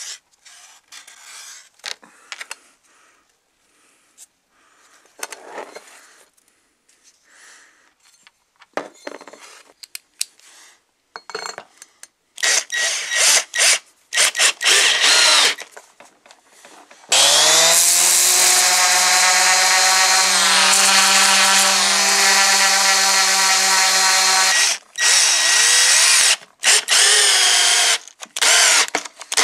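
A cordless drill-driver driving a screw into the part of an antique iron: short bursts of the motor, then one steady run of about seven seconds, then more short bursts. Before it, faint scraping of a spatula spreading body filler.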